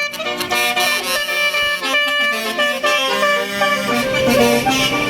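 Tour bus's telolet basuri musical air horn playing a melody, its reedy tones stepping from note to note.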